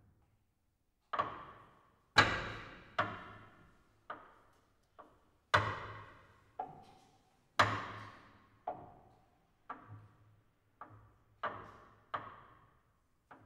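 Contemporary chamber music for clarinet, cello and piano: about fifteen short struck or plucked attacks at irregular intervals, each ringing out and fading within a second, with near silence between them. The loudest come about two, five and a half and seven and a half seconds in.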